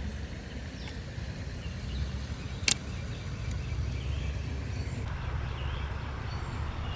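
Steady low rumble and hiss of flowing creek water, with one sharp click nearly three seconds in.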